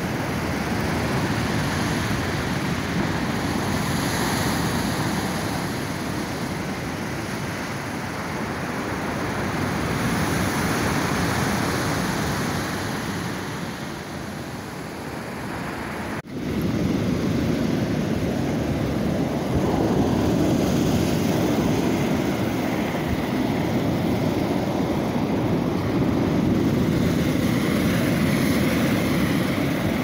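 Rough sea surf breaking on a pebble beach: a continuous rushing noise. It drops out briefly about 16 seconds in and comes back louder and deeper.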